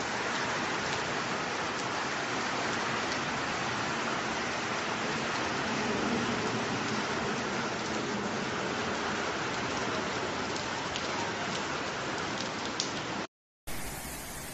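Heavy rain pouring steadily: a dense hiss of rain on surfaces, with a few faint sharp drop taps. It cuts out briefly near the end and gives way to a thinner rain hiss.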